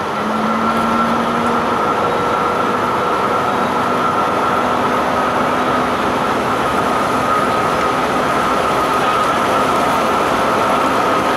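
Diesel railcar KiHa 52 125 under way, heard from inside through an open window: the steady drone of its diesel engines with a high, even whine over the rumble of wheels on the rails.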